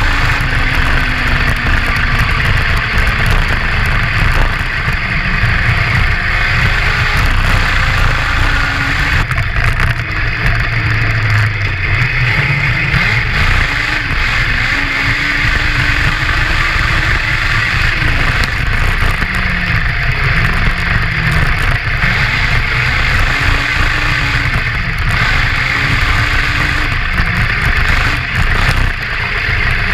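Honda CBR1000 inline-four motorcycle engine in a homemade crosskart buggy, revving up and down repeatedly as it drives. Heavy low rumbling wind and road noise sits under it, picked up by the exposed camera near the front tyre.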